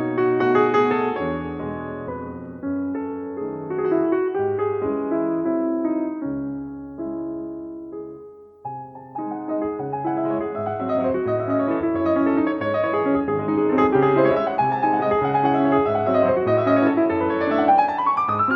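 Background piano music, note after note with a low bass line, pausing briefly about eight seconds in and ending with a rising run of notes.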